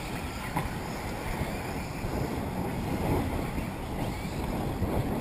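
Wind buffeting the microphone in a steady low rumble, with the faint whir of electric 1/8-scale RC buggies racing underneath.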